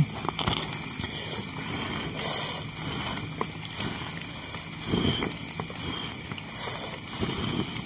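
A person blowing hard on smouldering firewood to fan it into flame: breathy puffs of air, the strongest about two seconds in and again near the end.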